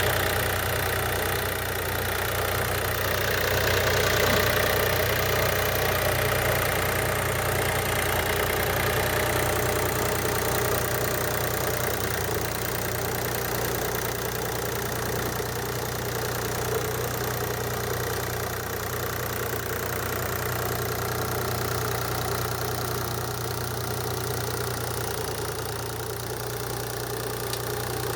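Hop-harvesting machinery running steadily with a constant low hum.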